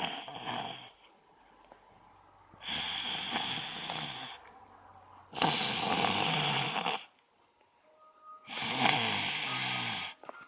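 Loud snoring: long rasping snores about every three seconds, each lasting one and a half to two seconds, with quiet breaths between.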